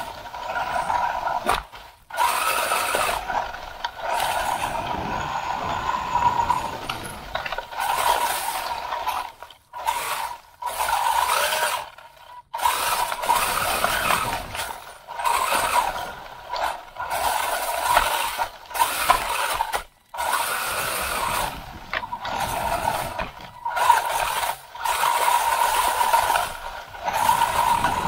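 WLtoys 144001 RC buggy's electric motor and gear drivetrain whining under throttle, heard up close from a camera mounted on the car. It comes in bursts of a few seconds with short drops as the throttle is let off, along with rattling and rustling as the buggy bounces over rough grass.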